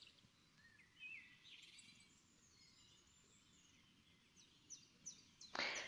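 Near silence with faint bird chirps in the background, a few short calls about a second in and again near the end. A short burst of noise comes just before the end.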